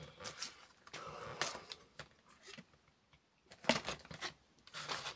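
Hands rummaging on a cluttered workbench: short bursts of scraping and rustling of small parts and paper, with a quiet gap in the middle.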